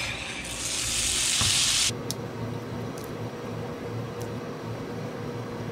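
Diced cottontail rabbit meat hitting a hot oiled pan and sizzling loudly for about a second and a half. Then a quieter, steady frying sizzle.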